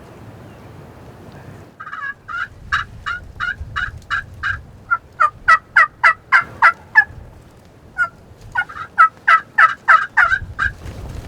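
Wild turkey yelps: three loud runs of separate, slightly falling notes, three or four a second, with short breaks between the runs. Wind noise rumbles underneath.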